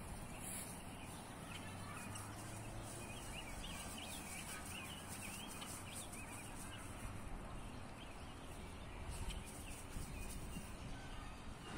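Faint outdoor ambience: a steady background hiss with small birds chirping faintly, mostly in the first few seconds.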